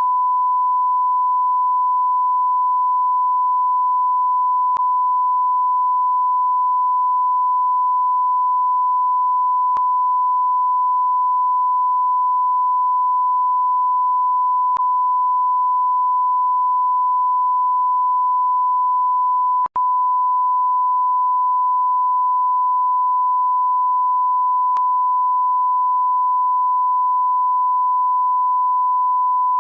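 A continuous 1 kHz bleep tone, the kind used to censor speech, holding one steady pitch and level. It drops out for a split second about twenty seconds in.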